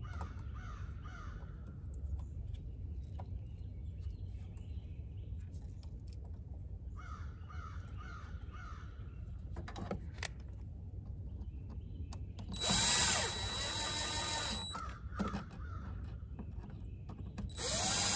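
Cordless drill-driver running in two short bursts of about two seconds each, about two-thirds of the way through and again at the end, fastening a replacement mass airflow sensor into a Duramax diesel's air intake.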